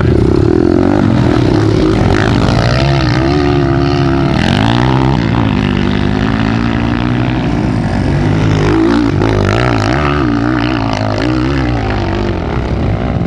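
Several small off-road motorcycle engines, pit bikes and enduro bikes, running and revving at once, their overlapping pitches rising and falling.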